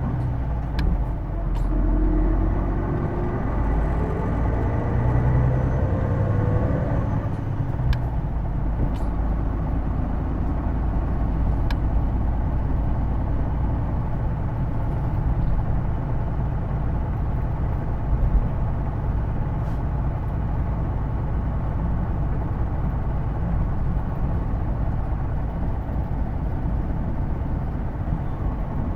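Hino Blue Ribbon II city bus heard from inside the cabin, its drivetrain whine rising in pitch as the bus accelerates, then stopping after about seven seconds and leaving a steady low engine and road rumble. The whine is the bus's odd transmission noise, which the recordist likens to an automatic gearbox. A few faint clicks sound from the cabin.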